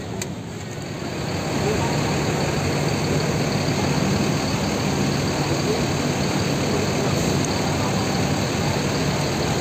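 Bus engine running at idle, a steady low hum that grows louder about a second in.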